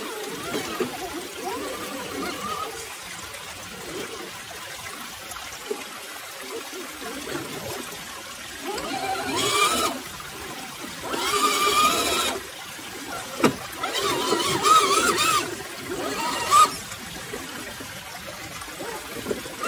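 RC crawler's electric motor and gears whining in several short bursts in the second half, the pitch rising and falling with the throttle as the truck creeps over rocks, with a couple of sharp clicks. Underneath runs a steady trickle of a creek.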